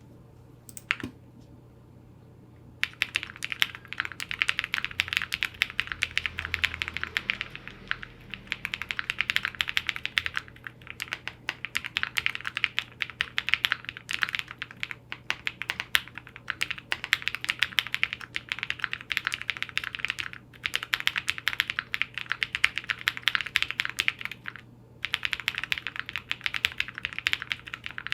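Space80 Apollo custom mechanical keyboard with lubed and filmed Durock POM switches on an FR4 plate being typed on fast: a dense, continuous stream of keystroke clacks. A single key press about a second in, then steady typing from about three seconds in, broken by a few brief pauses.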